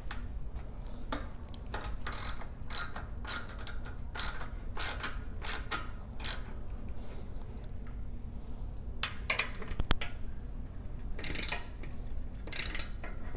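14 mm wrench clicking in repeated short strokes as it tightens the nut on a bicycle seat clamp. The clicks come about one every half-second for a few seconds, pause, then come in a few more groups near the end.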